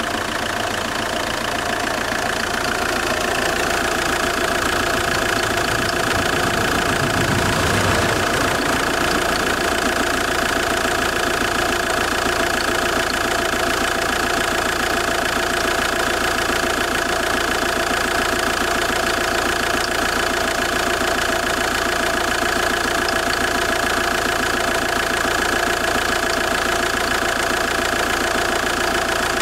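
Fiat 1.9 JTD 105 four-cylinder common-rail turbodiesel idling steadily while cold, with the diesel clatter and the weird creaking noise it makes when the engine is cold.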